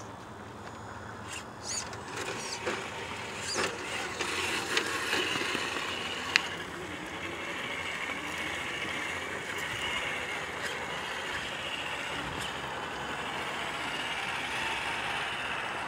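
Electric motors and geartrains of two Traxxas TRX-4 and Axial SCX10 II RC rock crawlers whining steadily as the trucks creep over rocks and grass. Scattered clicks and knocks of tyres and chassis on stone come through, with one sharp click about six seconds in.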